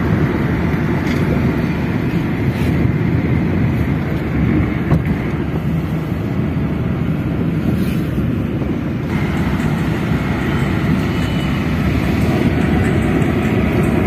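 Steady road and engine noise heard from inside a moving car's cabin: a continuous low rumble of tyres and engine at cruising speed.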